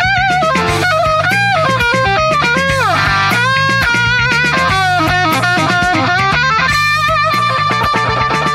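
Instrumental passage of an AI-generated rock song: a lead electric guitar plays a melodic solo with short held notes and a falling slide about three seconds in, over bass and drums, then sustains one long note near the end.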